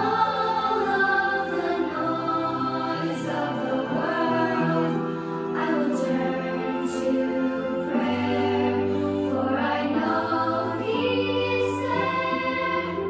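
A woman singing a gentle religious song about prayer, with a music track and choir-like voices behind her.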